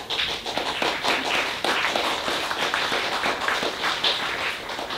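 A small audience applauding: dense hand-clapping that starts abruptly and thins out near the end.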